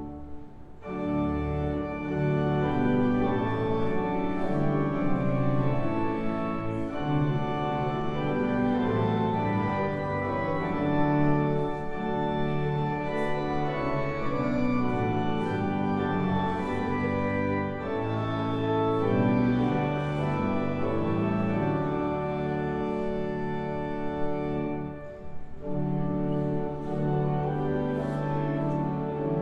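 Church organ playing a hymn in sustained chords that change every second or so, with a short break about a second in and another near 25 s between phrases.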